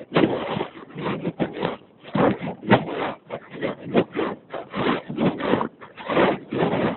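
Footsteps crunching through snow at a walking pace, about two to three steps a second.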